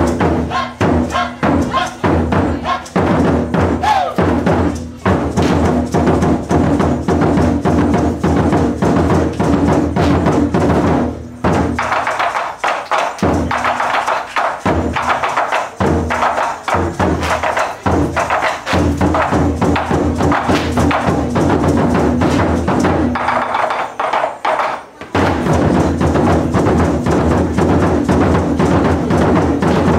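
A Japanese taiko drum ensemble plays a fast rhythmic piece: repeated stick strikes on large barrel drums and smaller drums. The playing thins to spaced single hits for a few seconds a little before halfway, drops away briefly near the end, then comes back in full.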